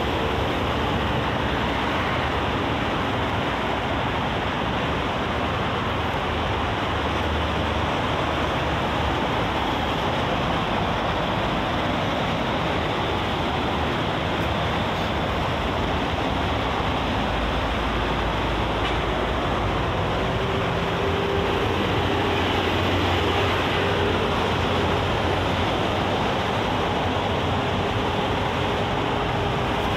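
Steady rush of expressway traffic: cars, buses and heavy trucks passing at speed, a continuous mix of tyre and engine noise, with a faint engine hum in the second half.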